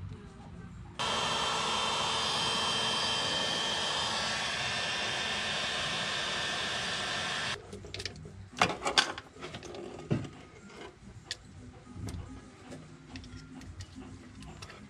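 Electric heat gun blowing a steady hiss for about six and a half seconds to shrink heat-shrink tubing over a soldered wire splice, starting and cutting off suddenly. Afterwards a few sharp clicks and the rustle of wiring being handled.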